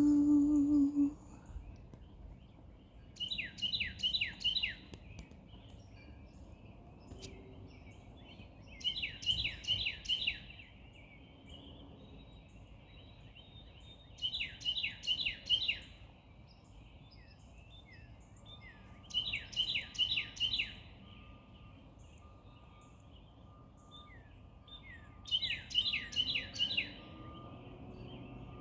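A songbird singing a phrase of four or five quick downslurred whistles, repeated five times about every five to six seconds. A long held sung note ends about a second in.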